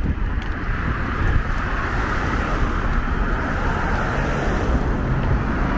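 City street traffic: a steady rush of passing vehicles over a low rumble, swelling in the middle as a vehicle goes by.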